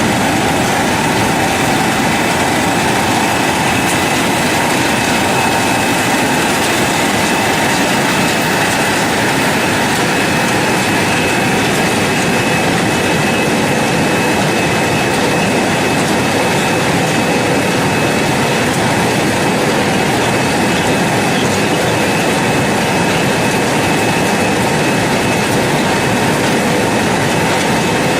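Air-bubble vegetable washing machine running: a steady, unbroken machine noise with a few faint steady tones running through it.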